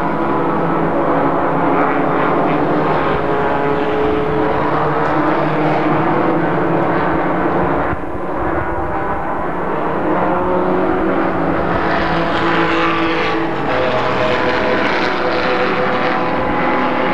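Race car engines running at speed on a road course, several engine notes overlapping and shifting slightly in pitch as the cars pass.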